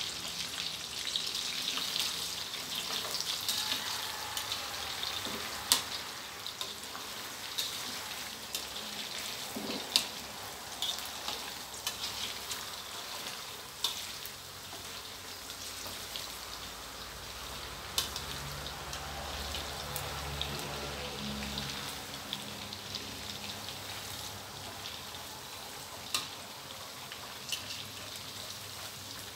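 Isan sausages deep-frying in a wok of hot oil: a steady sizzle, with sharp clicks every few seconds as a ladle stirs them.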